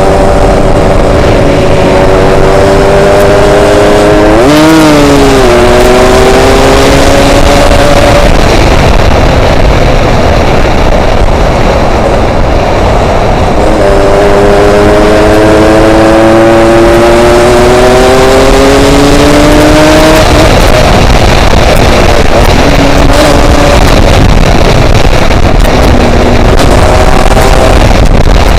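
Yamaha RX-King's two-stroke single-cylinder engine under way, its pitch climbing slowly with the revs twice, with a quick up-and-down wobble about five seconds in. Heavy wind noise buffets the microphone throughout.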